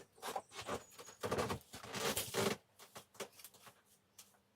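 Rustling and scraping from hands handling things, a run of brief irregular strokes with a few faint ticks after about two and a half seconds.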